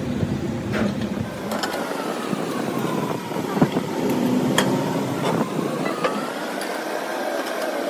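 Machine running with a whine that slowly sinks and rises in pitch, with scattered sharp clicks.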